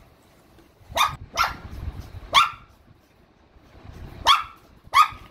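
Shih Tzu barking: five short, sharp barks at irregular intervals, two of them in a quick pair about a second in.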